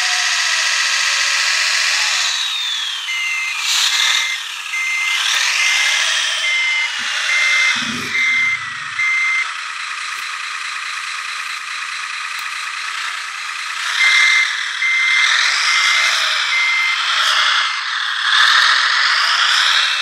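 Hydraulic radio-controlled model wheel loader working: electric drive and hydraulic pump motors whining, the pitch gliding down now and then as they slow. Electronic reversing beeper sounding in two runs of steady beeps, the first about three seconds in and the second near the end, with a short low thump about eight seconds in.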